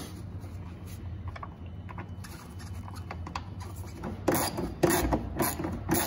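Hand ratchet with an extension and 8 mm socket clicking as it drives a tail-light mounting bolt home, in quick repeated strokes that start about four seconds in.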